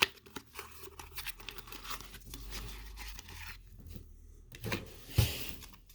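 Trading card packs being torn open, their wrappers crinkling and cards being handled in scrappy rustles and clicks, with one louder knock about five seconds in.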